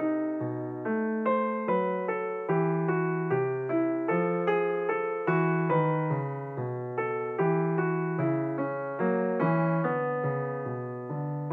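Background piano music: a gentle, steady run of single struck notes, each fading before the next.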